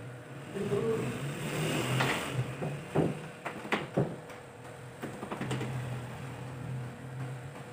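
Several sharp clinks and knocks of a steel trowel against a mortar basin and the tiled counter as tile mortar is scooped and spread, most of them in the middle few seconds, over a low steady hum.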